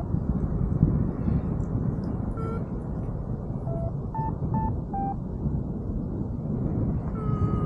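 Wind rushing over the microphone in flight, with a paragliding variometer sounding over it in short beeps that step up and down in pitch, its climb signal. Near the end a longer, steadier low tone begins.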